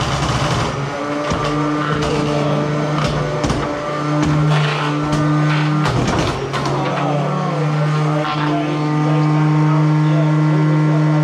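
Small combat robots' electric motors whining at a steady pitch, cutting out and picking up again several times, with sharp knocks as the plastic robots hit each other and the arena walls.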